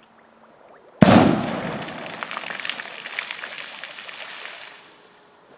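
A large firecracker exploding in a shallow pond: one sharp bang about a second in, followed by a few seconds of crackling spatter as the thrown-up water falls back, fading out.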